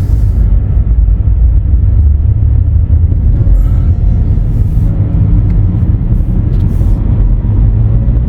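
A car driving along the road, with a steady low rumble from the road and the engine.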